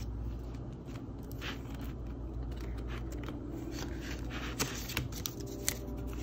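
Paper banknotes rustling and sliding into a clear plastic binder pocket, with small clicks from handling the binder and a couple of sharper taps near the end.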